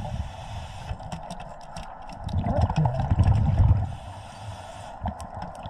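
Scuba regulator exhaust bubbles rumbling underwater in a burst midway through, with quieter hiss between breaths and scattered light clicks and knocks from gear being handled.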